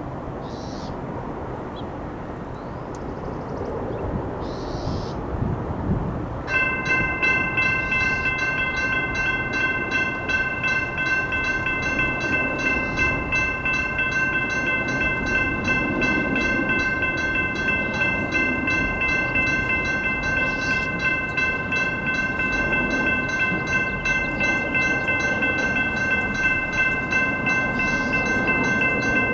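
Traffic noise at first. About six seconds in, railroad crossing warning bells start ringing rapidly and steadily, and they keep ringing while the crossing gates come down.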